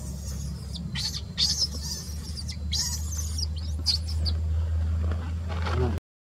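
Baby macaque squealing in a series of short, high-pitched squeaks, bunched in the first four or so seconds, over a steady low rumble; the sound cuts off abruptly near the end.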